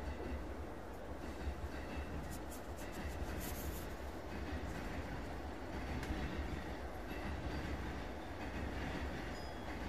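Electric commuter train heard from inside the passenger car as it pulls slowly out of the station: a steady low rumble from the running gear with faint wheel clicks, and a few short high-pitched hisses or squeals about three seconds in.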